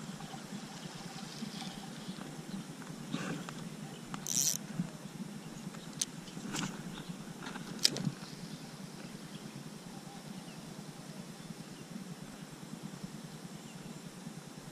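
Spinning rod and reel being worked while lure fishing: a brief hiss about four seconds in, a few sharp clicks around the middle, and the reel being cranked on the retrieve, over a low steady background noise.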